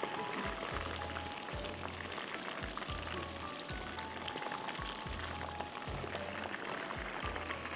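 Batter-coated chicken pieces deep-frying in hot oil, a dense, steady crackling sizzle, with background music and its steady low beat underneath.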